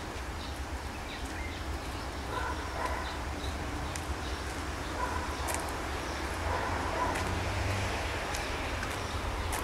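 Outdoor railway-station ambience: a steady low rumble with short distant calls every second or two and faint clicks.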